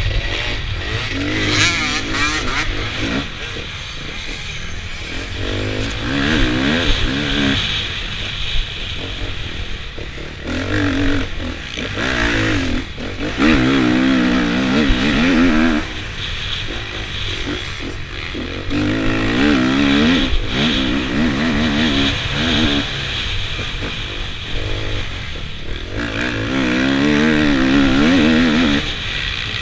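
KTM 250 EXC two-stroke enduro motorcycle, heard from the rider's helmet, revving up and down again and again as it is ridden over rough dirt, with wind and track noise underneath.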